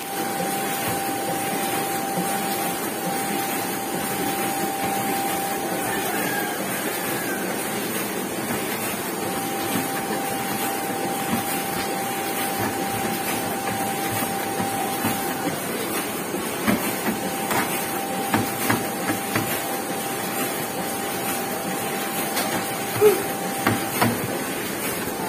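Heidelberg KORS sheet-fed offset printing press running steadily: an even mechanical clatter with a constant whine that drops out briefly twice. A few sharp clicks come in the second half.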